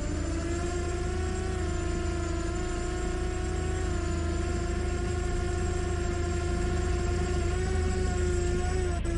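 Small quadcopter drone's propellers whirring steadily as it flies, the hum's pitch wavering slightly.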